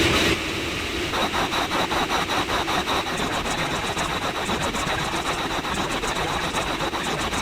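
Engine-like running sound with a fast, regular pulse, starting when a louder preceding sound cuts off about a third of a second in.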